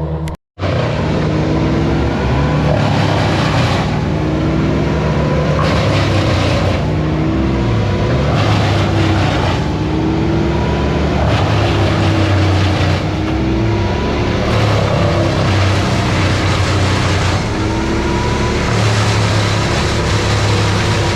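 An engine running continuously, its pitch drifting up and down every second or two as if under changing load.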